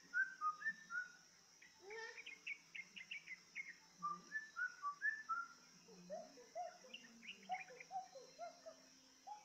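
Yellow-vented bulbul (trucukan) song from a bird-keepers' lure recording: quick runs of short, clear whistled notes, each sweeping in pitch, moving between higher and lower phrases.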